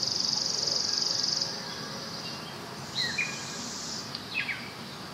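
Outdoor nature ambience: a high, steady insect trill that fades about a second and a half in, then two short falling bird chirps near the middle.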